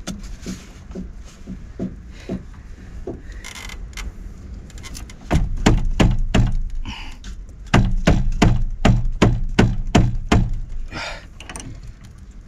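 A wrench knocking and clunking against a seized temperature and pressure relief valve on an unvented hot water cylinder as it is forced: a few light knocks, then two spells of sharp, loud knocks at about four a second from about five seconds in. The valve is too tight to undo.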